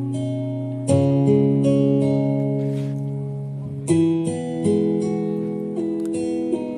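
Recorded music played back: strummed acoustic guitar chords ringing out, with fresh strums about a second in and again near four seconds, the opening of a DJ remix played over a sound system.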